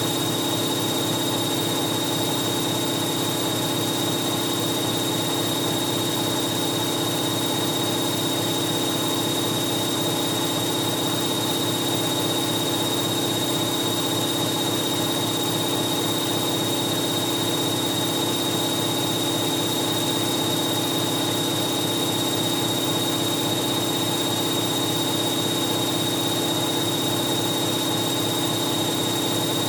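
Hoover 1100 De Luxe washing machine spinning at a steady speed: an even motor-and-drum hum with a thin high whine above it.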